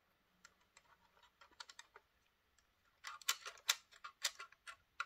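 Small plastic clicks from the coupler pocket and close-coupling shaft of an ACME model passenger coach being worked by hand: a few faint ticks, then a quick run of sharp clicks, about four a second, from about three seconds in. The shaft seems to snag a little as it moves.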